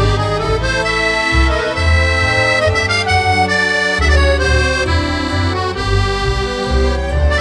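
Accordion music: a melody in held chords over bass notes that change every half second or so.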